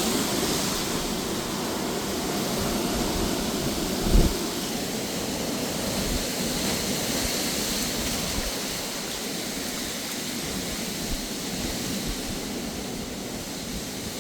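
Strong, gusty wind with rain: a steady rushing noise that eases off slowly, with one short low thump about four seconds in.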